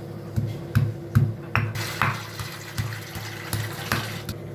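Ginger being pressed and crushed together with almonds, tulsi leaves and peppercorns by hand: a run of irregular knocks and crunches, roughly two or three a second.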